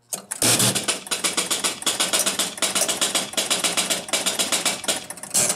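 A 1974 Gottlieb Big Shot electromechanical pinball machine's relays and mechanisms clattering in a fast, continuous chatter of clicks, several a second, after it is started, then cutting off suddenly near the end. The machine is not starting a game properly but cycling over and over, a fault the title puts down to one switch.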